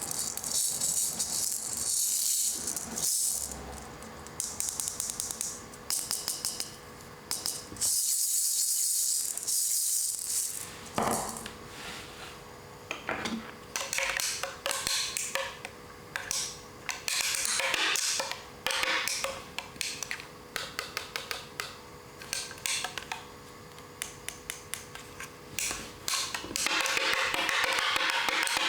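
Small plastic toy parts clicking, tapping and rattling in quick irregular runs, over a steady tune.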